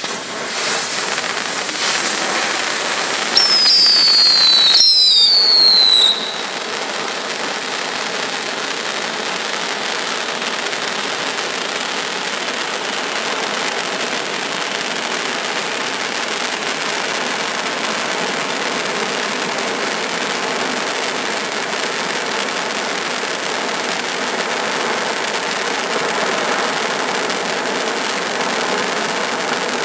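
200-gram Mic King hand-held firework fountains burning with a steady hiss. About three seconds in, shrill whistles falling in pitch sound for about three seconds.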